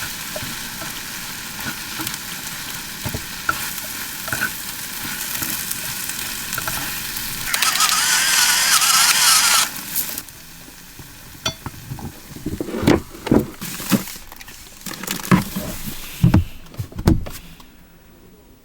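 Food frying and sizzling in a pan, with a louder surge of sizzling for about two seconds before the frying sound stops. Several sharp knocks follow.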